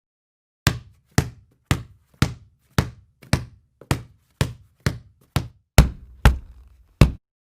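A sound effect of steady knocking: about a dozen sharp knocks, roughly two a second, the last few louder, each dying away quickly.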